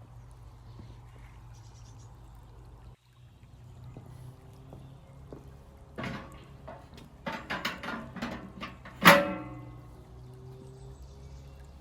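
A run of irregular metallic clanks and knocks, several of them ringing, with the loudest strike about nine seconds in, over a steady low hum.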